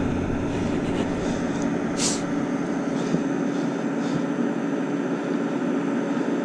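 A steady mechanical hum, with a short hiss about two seconds in.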